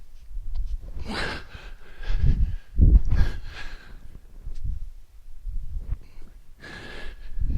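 Heavy breathing of a person straining through a set of hang snatch thrusters: forceful breaths out and gasps about every two to three seconds, with a couple of low thuds between them.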